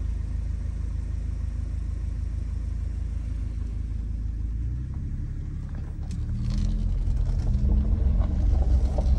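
Vehicle engine and road noise, a steady low rumble that grows louder about halfway through as the engine note rises.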